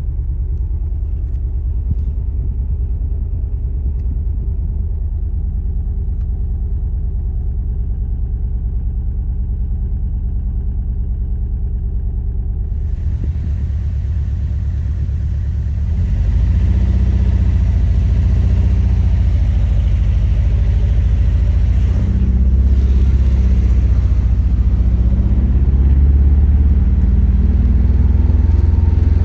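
Nissan SR20DET turbocharged four-cylinder engine idling roughly with an uneven, lumpy glug, the sign of a misfire at idle that the owner suspects comes from the spark plugs, bad fuel or the injectors. The engine sound gets louder and fuller a little over halfway through.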